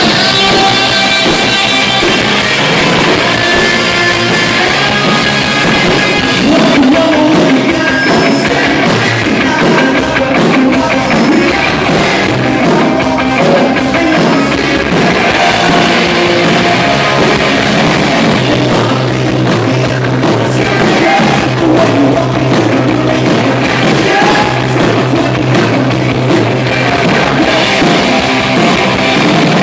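Loud live rock band playing, amplified guitar and drum kit, with the drums and cymbals coming in strongly about seven seconds in.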